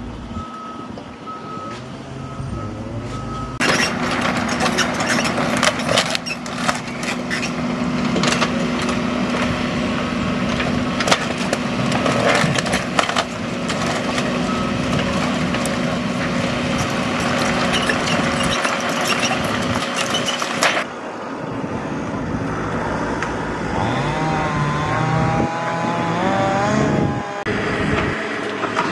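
Yanmar mini excavator's engine running steadily while it works through tornado debris, with many sharp knocks and clanks of metal and wood. Later, at a lower level, a machine's pitch rises and falls for a few seconds.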